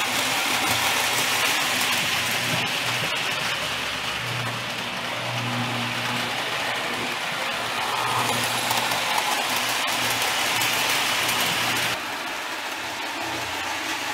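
Marx Trains O-27 tinplate toy train running on three-rail tinplate track: the steady hum of the locomotive's electric motor and the rattle of wheels on the rails. It swells twice as the train passes close, then drops suddenly to a lower level about twelve seconds in.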